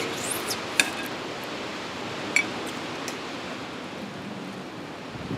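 A few light metallic clinks as alligator clips are taken off strips of bacon and set down on a ceramic plate, the clearest about a second in and another a little past two seconds, over a steady background hiss.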